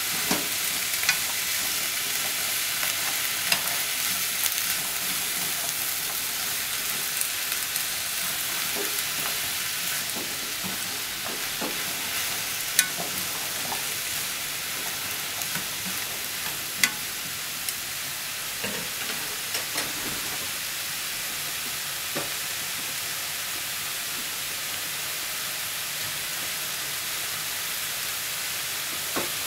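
Cabbage and enoki mushrooms sizzling in a frying pan, a steady hiss. Chopsticks stir them, with scattered sharp clicks against the pan that thin out over the last third.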